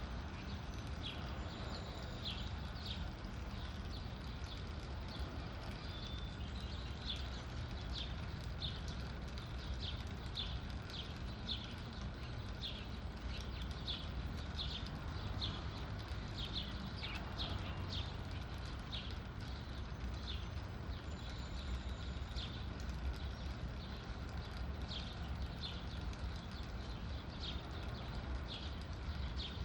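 Small birds feeding at a bird feeder: short, sharp, high chips or taps, about one or two a second at an uneven pace, over a steady low rumble.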